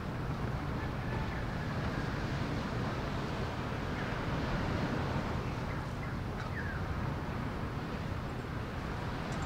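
Steady outdoor rush of wind and sea surf, with a couple of faint bird chirps in the middle.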